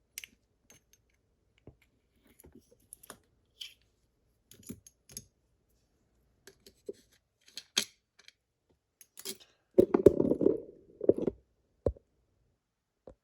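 Small metallic clicks and ticks from a Yale lock cylinder being handled and worked on, its plug's retaining C-clip already off. A louder bout of handling and clunking comes about ten seconds in, then a single sharp knock.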